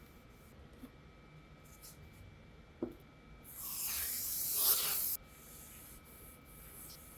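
A spray can hissing in one steady burst of about a second and a half that stops abruptly, with a light click shortly before.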